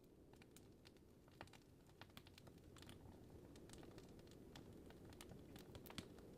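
Faint crackling of a wood fire in a fireplace: scattered small pops and snaps at irregular intervals over a low, steady rumble.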